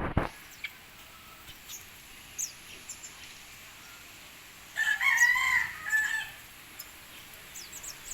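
A rooster crowing once, starting about five seconds in and lasting about a second and a half. There is a brief loud burst of noise at the very start and faint high chirps scattered throughout.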